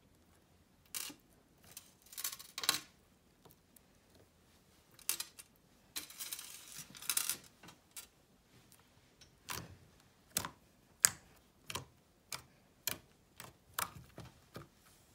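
Small charms and a starfish being picked out of thick slime, with soft crackles and clicks, then fingers poking and pressing the slime, giving a run of sharp pops about every half second.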